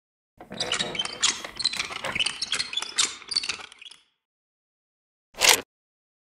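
Handling noises: a quick, irregular run of clicks, rustles and knocks for about three and a half seconds, then a pause and one short scrape about five and a half seconds in, as a portable radio's telescoping antenna is pulled out.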